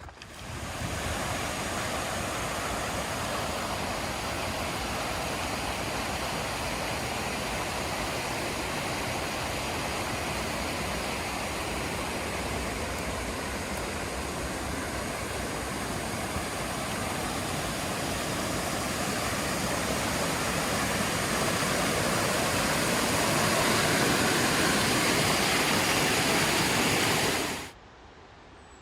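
Rushing water of a mountain stream or small cascade, a steady full rush that grows a little louder near the end and then cuts off abruptly.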